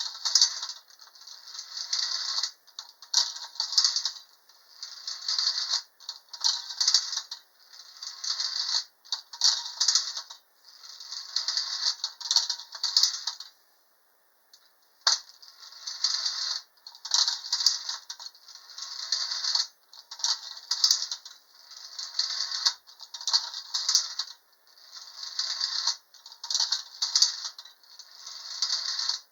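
A 1940 Wolverine Jet Roller Coaster tin toy run by a hand crank: its small metal car and lift mechanism rattle and clatter along the tin track. The rattling comes in repeated bursts about every two seconds, with a short pause about halfway through.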